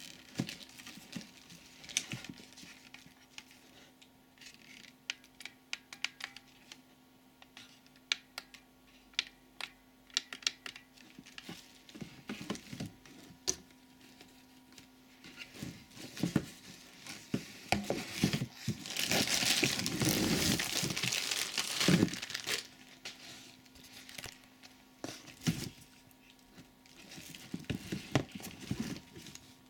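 Packaging crinkling and rustling while the plastic hose, handle and nozzle of a vacuum cleaner are handled, with scattered light clicks and knocks of plastic parts. A louder stretch of crinkling comes a little past the middle.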